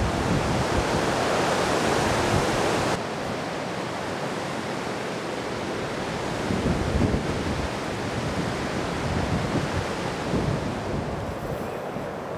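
Wind buffeting the microphone in uneven gusts over a steady rushing hiss; the hiss drops abruptly about three seconds in.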